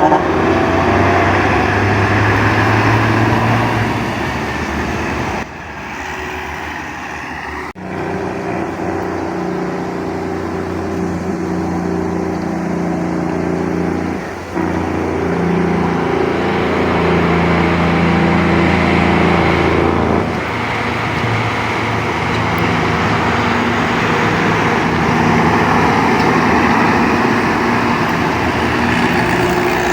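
Heavy truck engines running, in several short clips cut together, with abrupt changes between them.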